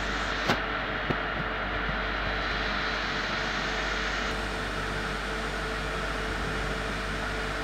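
Electric overhead hoist of a boat launcher running steadily under pendant control, a steady hum under an even hiss. Two short clicks in the first second or so.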